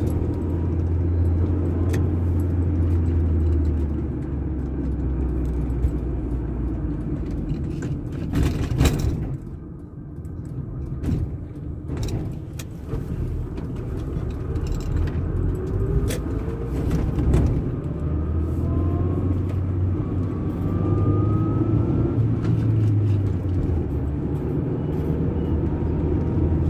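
Engine and road rumble inside a car cabin while driving, dipping briefly about ten seconds in, with a few knocks and rattles. In the second half a faint rising whine keeps repeating as the vehicle picks up speed.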